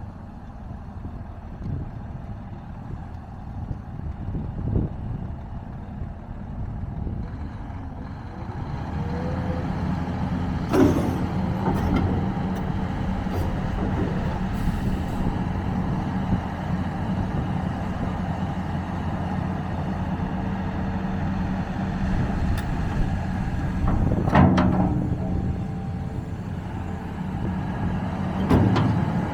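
Volvo EC480DL hydraulic excavator's diesel engine running: a low rumble at first, then rising to a louder, steady higher speed about eight seconds in. Three sharp knocks come through over the engine.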